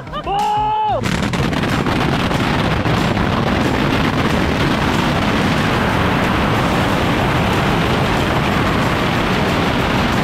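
Yanshui beehive rocket tower firing: thousands of bottle rockets launching and bursting at once, blending into one dense, unbroken barrage that sets in about a second in.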